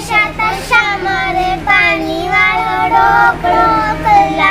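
Young girls singing a folk prayer song for rain together, in high children's voices without instruments, over a steady low hum.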